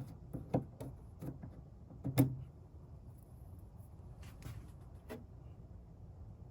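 Scattered light clicks and taps of a long hex key working a screw out of a 3D printer's metal housing, with one louder knock about two seconds in.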